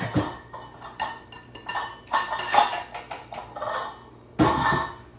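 Metal kitchenware clinking and clattering as a stainless mesh strainer is taken out from among pots and pans, with a louder clatter near the end.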